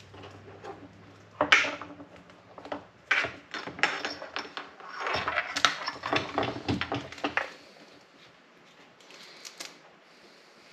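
Clicks, taps and rustling of a plastic brake-light housing being handled while a stick-on seal is pressed onto it, with a sharp knock about a second and a half in and a busier run of clicks and rustles in the middle.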